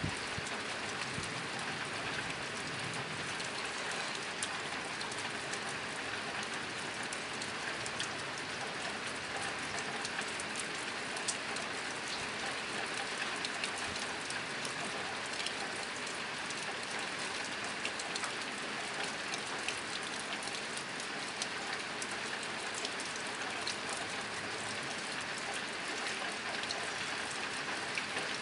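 Steady rain drumming on a tin roof: a dense, even patter of drops on the metal sheet, with sharper individual drop ticks scattered throughout.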